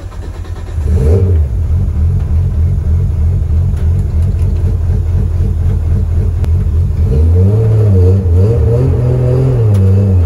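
Nissan R33 Skyline's RB25 straight-six starting up about a second in and running at a steady idle, heard from inside the cabin. From about seven seconds in the revs rise and fall again and again as the car pulls away and is shifted through the gears.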